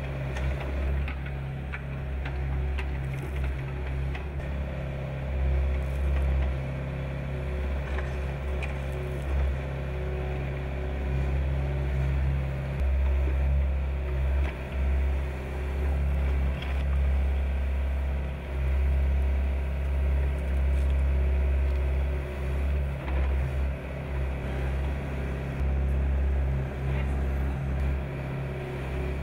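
Excavator diesel engine running steadily with a low drone, its loudness swelling and dipping as the machine works, with a few short knocks and clicks from the digging.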